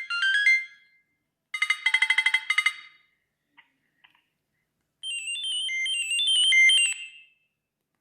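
Siemens C75 mobile phone playing three short electronic ringtone snippets one after another, each cut off after a second or two: a quick stepped run of notes at the start, a rapid string of about eight repeated chords, and a short two-part melody from about five seconds in. Two faint clicks fall between the second and third.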